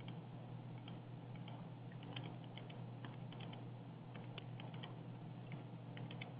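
Faint typing on a computer keyboard, irregular clicks in short runs, over a steady low hum.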